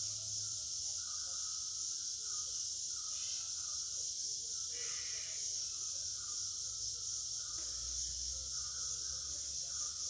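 Steady, high-pitched chorus of rainforest insects, unbroken throughout, with fainter intermittent lower calls coming and going beneath it.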